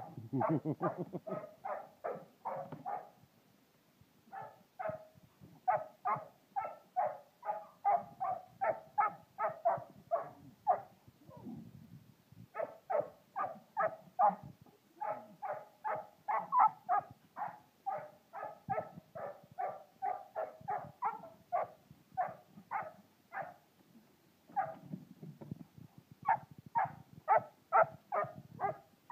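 Four-month-old Greater Swiss Mountain Dog puppy barking at goats in fast, repeated yaps, about three or four a second, in long runs broken by short pauses.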